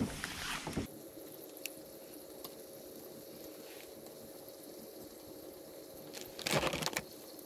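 Compact canister gas burner hissing steadily under a covered pot of water that is not yet boiling. A short, louder noise comes about six and a half seconds in.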